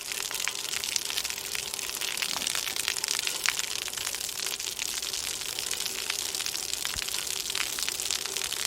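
Steady heavy rain: a dense hiss of patter full of many sharp individual drop ticks.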